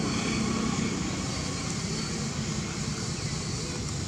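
Steady low rumble with a fainter hiss above it, unchanging throughout, like distant engine or traffic noise.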